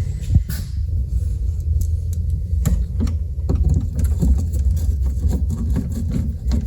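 A steady low rumble with scattered small clicks and taps as Phillips screws are driven in by hand to fasten a circuit board.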